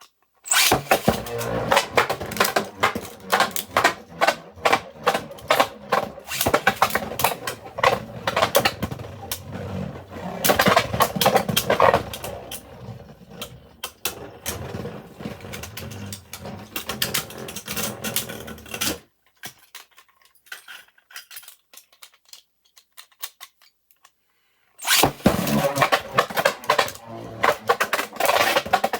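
3D-printed Beyblade spinning tops clashing in a stadium, a fast continuous clatter of plastic hits and scraping. The clatter stops about two-thirds of the way in and starts again near the end, as a new battle begins.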